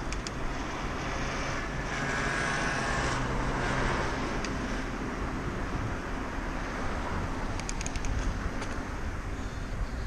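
Road traffic heard from a moving bicycle: a car passing, loudest about two to four seconds in, over steady low rumble, with a few sharp clicks near the end.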